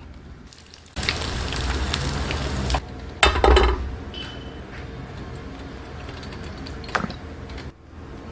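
Food sizzling in hot oil, as in deep-frying, starting abruptly about a second in. There is a loud clatter a few seconds in and a sharp click near the end.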